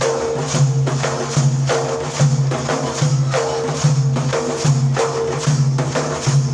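Instrumental interlude of Iraqi folk lament music between sung 'ataba verses: held low melody notes that change about every half second, over a steady beat of hand percussion with jingles.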